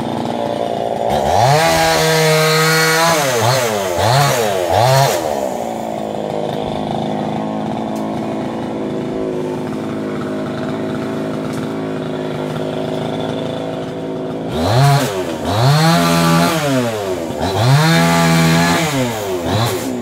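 Chainsaw cutting a felled eucalyptus trunk. It runs steadily at low speed and is revved up twice, about a second in and again about three-quarters through. Each time the pitch rises, holds and dips several times as the throttle is opened and eased.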